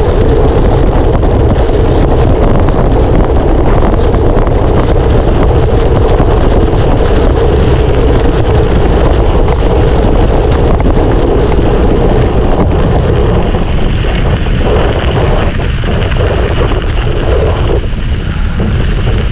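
Loud, steady wind rumble on the microphone of a mountain bike moving at speed. It eases and thins slightly in the last few seconds.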